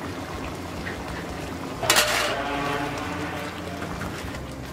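Tomato sauce with sliced sausage simmering in a metal pan while a silicone spatula stirs it, scraping the pan, with a sharper scrape about two seconds in.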